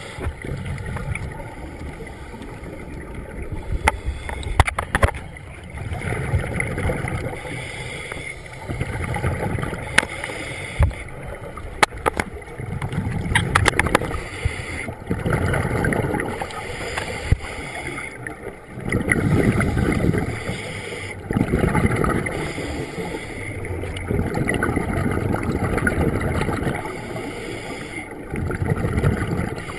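Scuba breathing heard underwater: bubbling, rumbling regulator exhalations that swell and fade every few seconds. A few sharp clicks or knocks come about four to five seconds in and again around twelve seconds.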